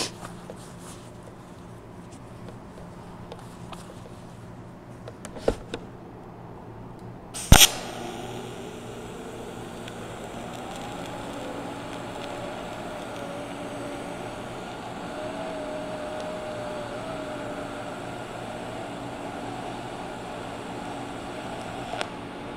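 DC TIG welding arc on aluminum plate: a sharp crack as the arc strikes about seven and a half seconds in, then a steady hiss with a faint wavering hum that stops near the end.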